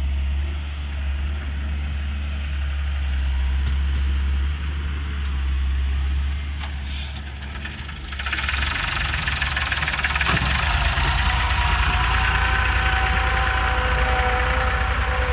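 Heavy diesel engine running with a deep steady rumble; about 8 s in it grows louder, with a hiss and a high whine joining and the low rumble turning into an even pulsing beat, as the machine works under load.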